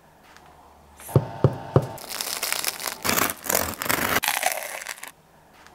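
Three sharp knocks, then a serrated bread knife sawing through the hard crust of a buckwheat sourdough loaf, giving a dense crackling that stops near the end.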